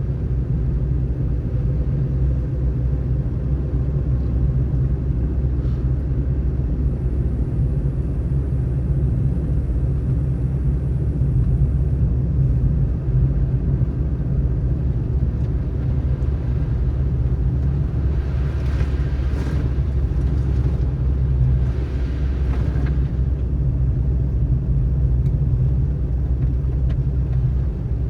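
Car driving: a steady low rumble of engine and road noise, with two brief hissing swells about two-thirds of the way through.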